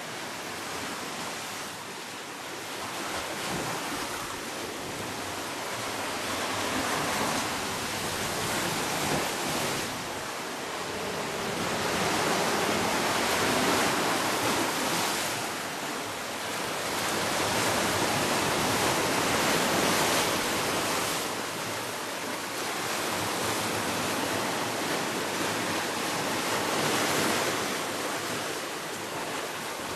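Sea waves surging and breaking over rocks, the wash swelling and easing every several seconds.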